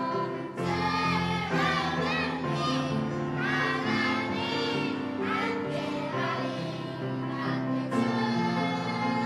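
A children's choir singing a worship song in Korean over musical accompaniment.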